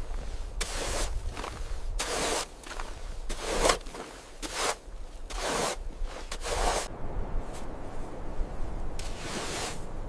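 Repeated rough scraping strokes, about one a second, that stop about seven seconds in, with one more stroke near the end.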